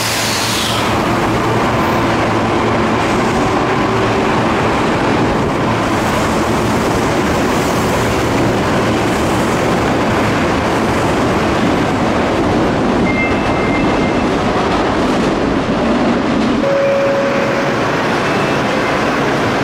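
A Midosuji Line subway train running along the platform, with a steady rumble of wheels on rail. A couple of brief tones sound later on.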